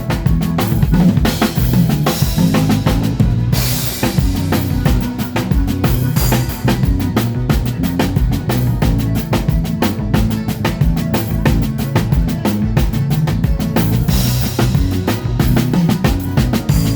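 Drum kit played live with a band during a sound check: a steady beat of kick, snare and rimshots over changing low bass notes, with cymbal crashes swelling twice.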